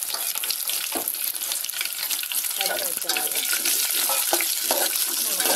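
Chopped onions and green chillies sizzling in hot oil in a metal pan, stirred with a metal spoon that scrapes the pan in quick, irregular strokes as they start to sauté.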